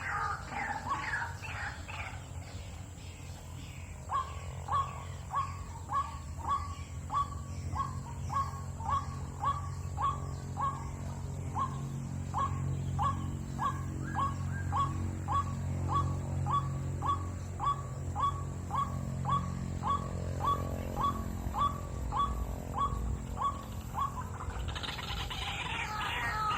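White-breasted waterhen calling: a long, even run of short 'kwak' notes at about one and a half a second, with denser, louder croaking calls at the start and again near the end, over a low steady hum.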